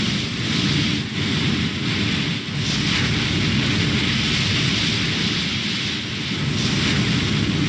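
Steady rushing wind-and-sea noise, with wind buffeting the microphone.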